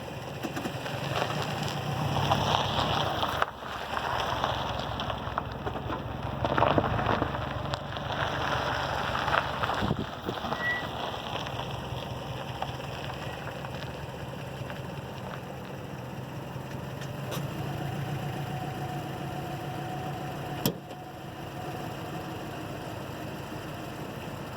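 Front Brembo brake pads on a 2006 Subaru Forester's Brembo Gold 4-pot calipers making noise as the car moves: a rough scraping hiss, louder in stretches during the first ten seconds, with a brief high squeak about ten seconds in and a faint steady tone later. The pads have about 10,000 km on them, and the owner wonders whether they are poor or fake.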